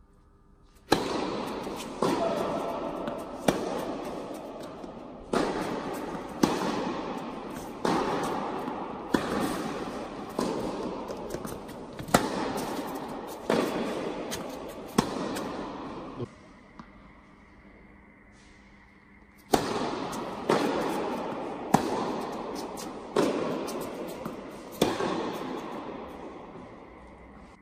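A tennis ball hit back and forth with racquets in an indoor tennis hall. Each sharp hit rings out with a long echo, and the hits come about one to one and a half seconds apart. A rally of about a dozen hits is followed by a pause of about three seconds past the middle, then a second rally of hits.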